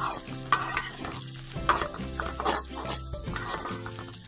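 A spatula scraping and stirring bitter gourd and rohu fish roe around a karai in irregular strokes, with hot oil sizzling under them. The oil has separated from the mix, the sign that the fry is nearly done.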